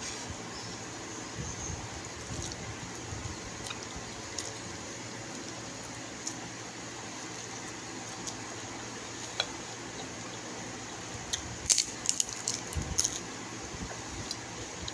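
Wet, squishy eating sounds: fingers pulling at a whole roast chicken and chewing, with a run of sharper smacks about twelve seconds in, over a steady low hum.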